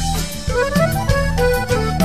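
Norteño band playing an instrumental break: the accordion leads with a quick melody of rising and falling runs over bass and a steady beat.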